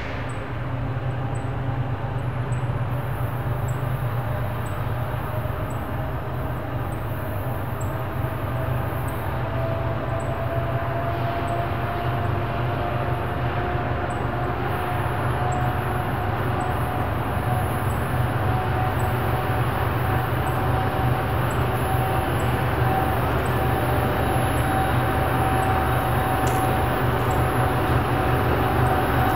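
Union Pacific diesel freight locomotive approaching slowly, its engine rumbling low with a thin whine that rises slightly in pitch. It grows gradually louder as it nears.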